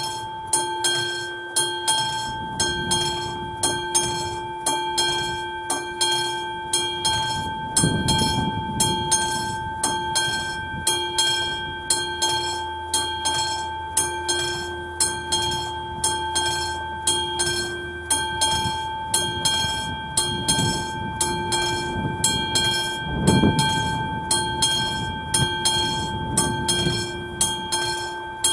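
Classic mechanical level-crossing warning bell ringing continuously in a steady rhythm, a little under two strikes a second, each strike ringing on. Low rumbles rise and fade under it a few times.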